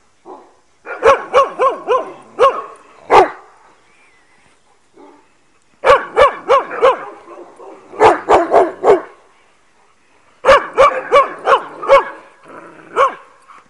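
Dog barking in three rapid bursts of several short, sharp barks each, with brief pauses between the bursts.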